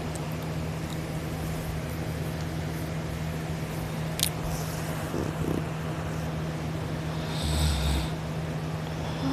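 A sleeping person snoring and breathing, with one louder snore near the end, over a steady background hum. A single sharp click about four seconds in.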